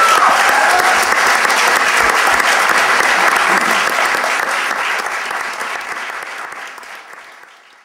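Audience applauding at the close of a speech, with a brief cheer right at the start; the applause dies away toward the end.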